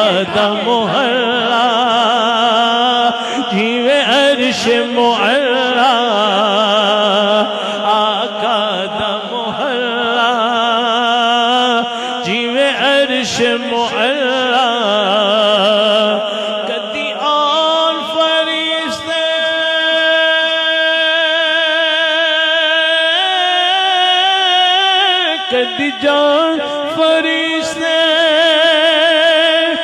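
A man singing a naat (devotional song in praise of the Prophet) into a microphone, drawing out long wavering, ornamented notes without words, then holding long steady notes through the second half.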